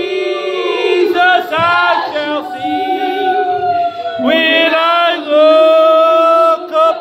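Voices singing a melody, with long held notes.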